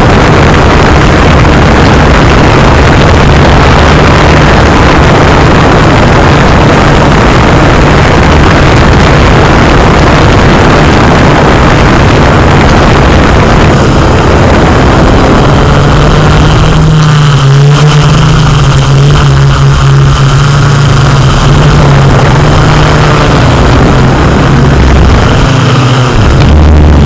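Yuneec Q500 quadcopter's electric motors and propellers running in flight, heard close up as a loud, steady hum over a rushing noise; the hum's pitch shifts a little past halfway through.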